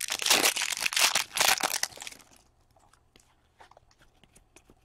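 A hockey trading-card pack's wrapper torn open and crinkled for about two seconds. Then come a few faint light ticks as the cards are handled.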